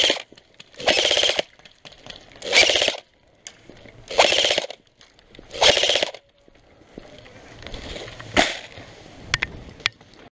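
Airsoft light machine gun replica firing five short bursts, each a rapid rattling buzz, about one every second and a half. Then rustling, with a sharp knock about eight seconds in and a couple of light clicks.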